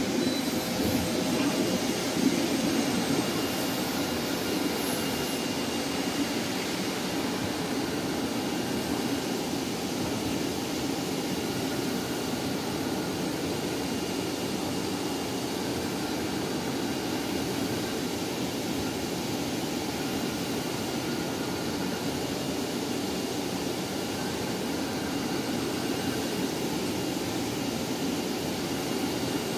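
CNC oscillating-knife cutting machine with a router spindle running as it cuts and grooves a polyester fiber acoustic panel: a steady rushing machine noise with a faint high whine.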